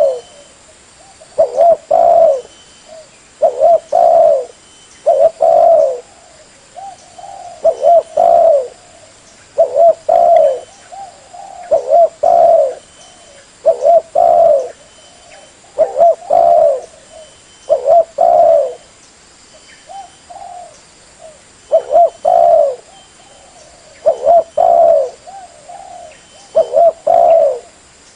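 Spotted dove (tekukur) cooing, as used in a bird-catcher's lure recording. The low coo phrases repeat about every two seconds, each a quick cluster of two or three notes.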